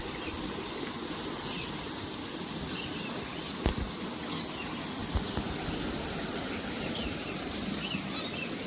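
Small birds chirping: short, high squeaky calls repeated every second or so over a steady high hiss.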